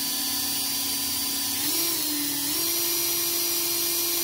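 Cordless drill running steadily, spinning the shaft of a carbon-seized Subaru EGR valve to free it up. Its whine dips briefly about two seconds in, then settles at a slightly higher pitch.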